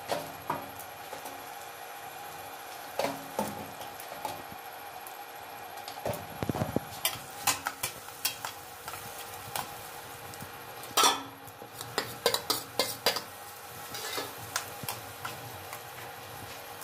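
Metal spatula scraping and tapping against a stainless-steel kadhai as frying onions and spices are stirred, over a steady low sizzle. The scrapes come in quick runs, busiest about seven and eleven seconds in.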